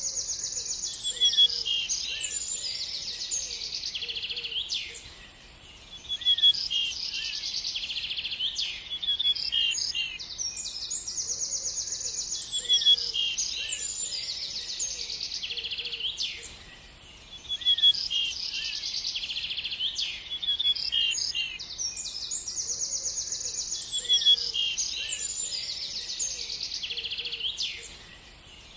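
Small birds chirping and singing in a dense, high-pitched chorus of rapid trills and tweets. The same stretch of song repeats about every eleven seconds, each time broken by a brief lull.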